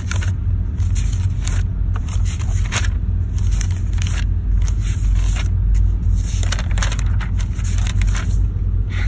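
Paper notebook pages being flipped one after another, a run of quick crisp rustles and flaps, over a steady low rumble.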